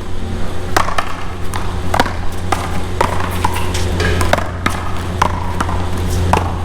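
A one-wall paddleball rally: a blue rubber ball struck back and forth by paddles and bouncing off the wall and court, sharp pops about twice a second, over a steady low rumble.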